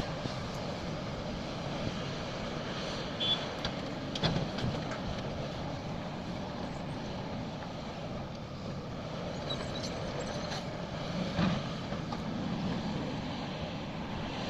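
Excavator's diesel engine running steadily, with a few sharp knocks, the clearest about four and eleven seconds in.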